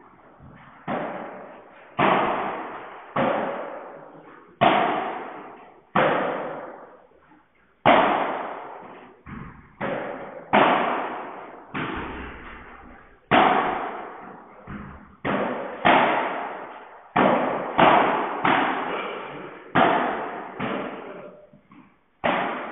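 Padel ball rally: the ball struck back and forth by padel rackets and bouncing off the court and glass walls, sharp knocks roughly once a second, each ringing out in a long hall echo.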